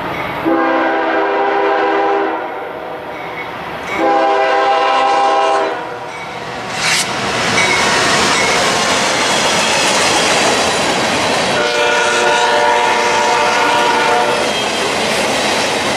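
A CSX freight train's multi-note air horn sounds three long blasts: two close together near the start, a third about twelve seconds in. Between and under them the passing train makes a steady rumble and clatter of wheels on rail. There is one brief sharp noise about seven seconds in.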